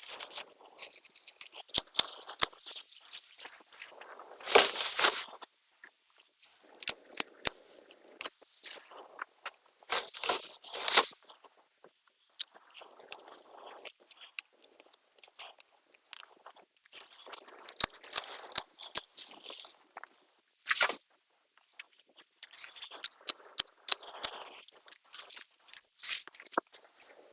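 Potato plant foliage being pulled up and handled: irregular bursts of rustling leaves and crunching, snapping stems, with short pauses between.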